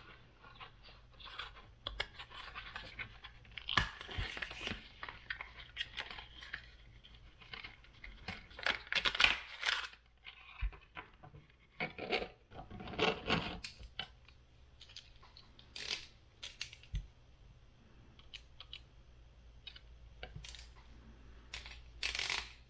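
Plastic housing of a GM DRAC speed-sensor module being pried apart and its circuit board handled: irregular plastic clicks, snaps and scraping, with a few louder scraping stretches.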